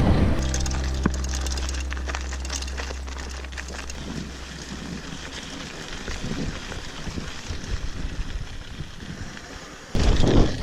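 The last chord of a rock song ringing out and fading over the first few seconds. Under it runs a rough wind rumble on the microphone with scattered clicks. About ten seconds in, a much louder burst of wind noise starts suddenly.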